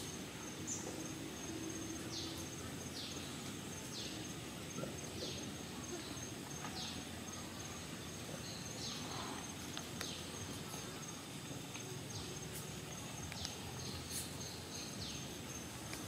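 Outdoor ambience: a steady high insect drone with a bird's short falling chirps repeated roughly once a second, over a low, even background hiss.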